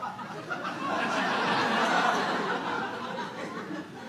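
Audience laughing, swelling about a second in and fading away near the end.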